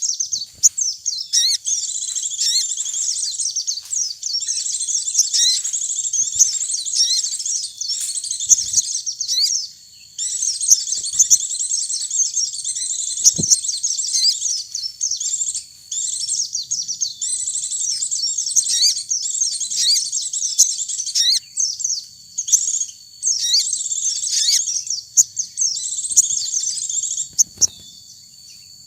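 Pleci (white-eye) birds singing a rapid, high, twittering song of dense chirps and trills, with short breaks about nine and a half and sixteen seconds in and a longer pause near the end.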